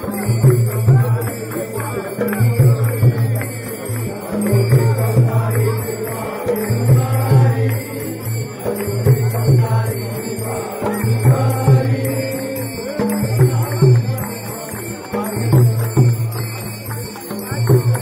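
Devotional procession music: voices chanting or singing together with jingling percussion, over a low pulse that comes back about every two seconds.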